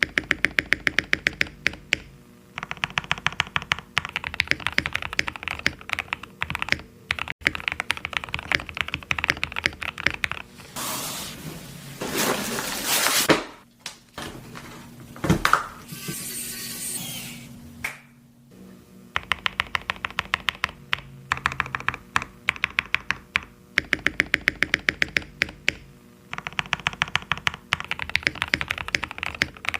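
Typing on a mechanical keyboard: fast runs of key clicks. About ten seconds in the typing gives way to several seconds of loud rushing noise and a single sharp knock, then the typing resumes.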